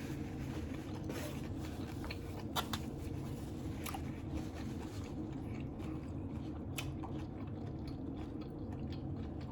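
A person chewing and biting food close to the microphone, with a few brief crunches, over a steady low background hum.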